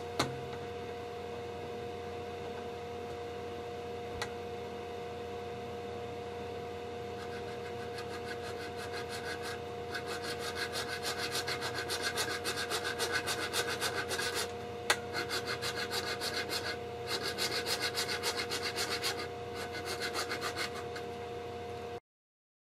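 A small hand saw scraping back and forth across a clear polycarbonate tube, scoring a shallow groove as the tube is turned. The quick, even strokes start faintly and grow stronger, in runs with short pauses. A steady background hum runs throughout, and all sound cuts off abruptly near the end.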